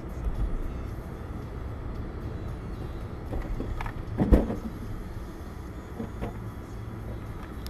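Steady tyre and engine noise inside a moving car on a wet, snowy road, with one loud thump about four seconds in.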